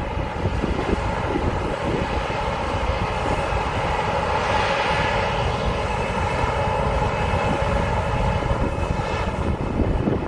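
Gleaner S98 combine running steadily: an even mechanical drone of engine and machinery with a steady hum of several tones.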